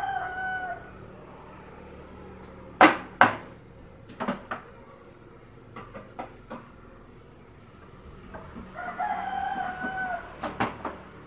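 A rooster crows twice, once at the start and again about eight and a half seconds in. In between come two loud sharp knocks about three seconds in, the loudest sounds here, then lighter knocks and taps as the stainless rice cooker is handled on the wooden bench.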